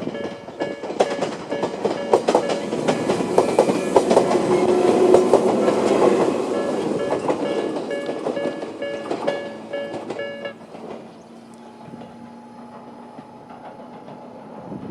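Electronic level-crossing bell with the Tobu type-B tone ringing in a steady repeating pattern while an electric train passes, its wheels clacking over rail joints, loudest about five seconds in. The bell stops about ten seconds in as the train fades away.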